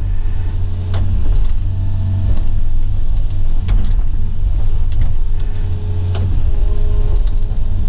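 Diesel engine of a heavy earthmoving machine running steadily under load, with a few short knocks.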